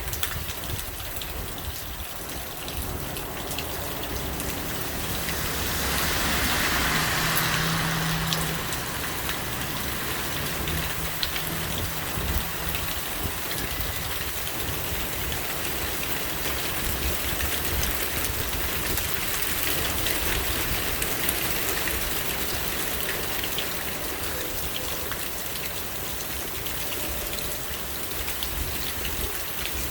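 Steady rain falling, full of small drop ticks, with gusty wind rumbling on the microphone. The rain surges louder about six seconds in, then eases back.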